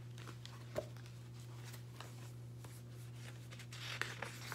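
Paper pages of a picture book being handled and turned: soft rustling and light taps, with a sharp tick under a second in and a busier flurry of rustling near the end, over a steady low hum.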